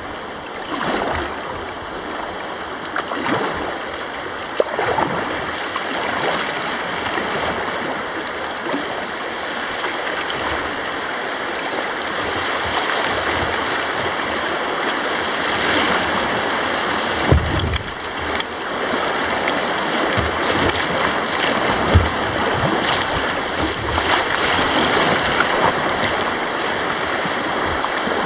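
Rushing water of river rapids, a steady wash, with a few short low thumps, the loudest about 22 seconds in.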